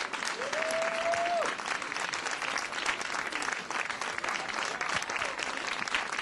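Audience applauding steadily, with one long high-pitched cheer from a voice about half a second in.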